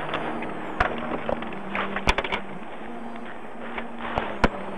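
Patrol car cabin noise while driving: a steady rush of road and engine noise with a low hum, broken by many scattered sharp clicks and crackles.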